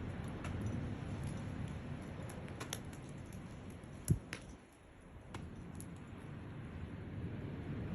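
Outdoor wind buffeting the microphone as an uneven low rumble, with scattered small clicks and one sharp thump a little over four seconds in, typical of handling noise on a handheld recorder.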